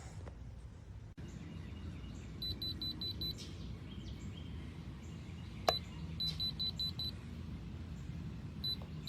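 Veise electronic keypad deadbolt beeping as its keys are pressed: a quick run of five short high beeps, a sharp click a little past halfway, another run of five beeps, then single beeps near the end, typical of a code being entered.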